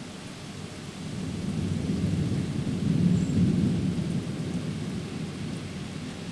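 Thunder rumbling over steady rain: the rumble swells about a second in, is loudest around three seconds, then dies away.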